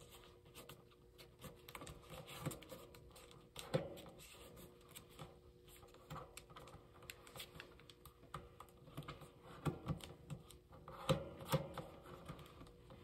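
Sheet of origami paper being folded and creased by hand on a tabletop: light rustling and crinkling, with crisp clicks as fingers press the folds flat. The sharpest clicks come about four seconds in and again near the end.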